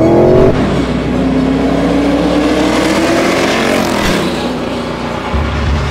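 1969 Chevrolet Corvette's aluminum big-block V8 running hard at high revs under acceleration. Its pitch drops sharply about half a second in, then climbs steadily again, and the sound swells as the car passes at speed around three to four seconds in.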